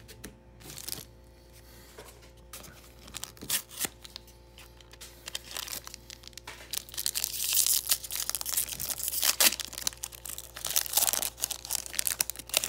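Foil wrapper of a Pokémon Roaring Skies booster pack being handled and torn open by hand. A few light rustles and clicks come first, then from about halfway in the crinkling and tearing become loud and dense.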